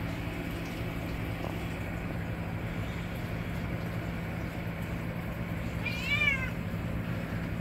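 A cat meows once about six seconds in, a short call that rises then falls, over a steady hum of reef-tank pumps and equipment. The cat is calling for attention.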